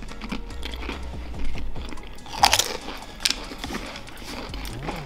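Pringles potato crisps crunching as they are bitten and chewed, in irregular crisp cracks with a sharper crunch about halfway through.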